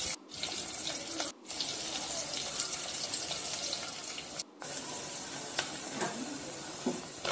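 Chopped onions sizzling in hot oil in a clay pot, a steady frying hiss that cuts out briefly three times in the first half. A few light clicks come near the end as a metal spatula stirs the onions.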